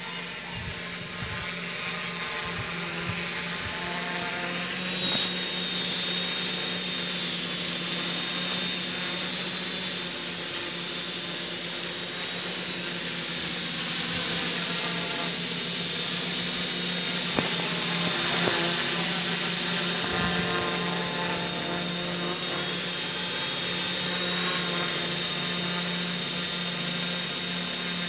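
F450 quadcopter's electric motors and propellers whining steadily, like a power drill, growing louder over the first five seconds or so as the drone closes in and then holding level.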